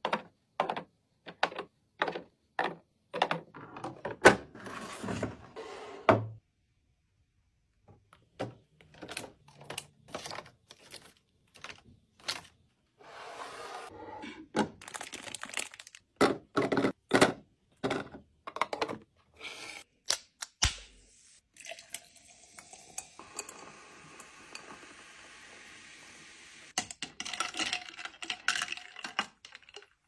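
Eggs clacking one by one into a clear plastic egg tray, then plastic packaging crinkling and a run of taps and clinks as food and containers are handled and set down. A steady hiss runs for several seconds in the second half, and quick clinks come near the end.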